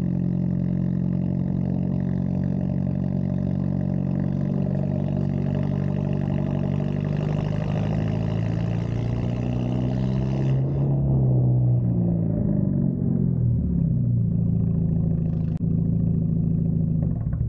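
Straight-piped exhaust of a turbocharged Hyundai Genesis Coupe, droning steadily at low revs while it cruises. About two-thirds of the way through the revs rise a little, then drop in a few steps as the car eases off.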